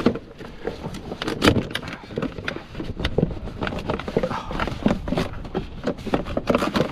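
Irregular clicks, knocks and clatter of hand tools on metal as parts are undone under a car's bonnet.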